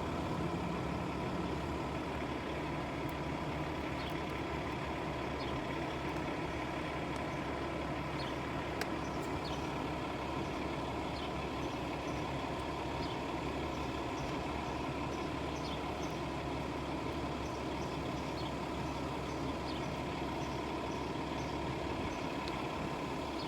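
A steady mechanical hum with an even rushing noise, holding a constant level throughout, with a few faint, scattered ticks.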